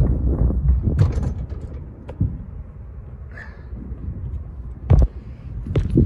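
Metal roof access hatch being pushed open, with rattling, clicks and creaks of the lid and its hardware, then a single loud thump about five seconds in as someone climbs out onto the roof.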